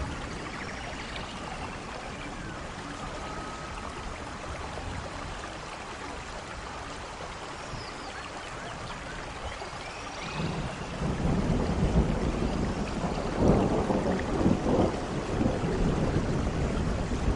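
Steady rain falling, a continuous hiss. About ten seconds in, a long rolling rumble of thunder builds and carries on, louder than the rain.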